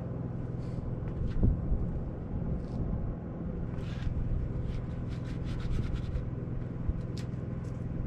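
A steady low machine hum, with light scattered clicks and rubbing from hands working at the base of a wall and a louder knock about a second and a half in.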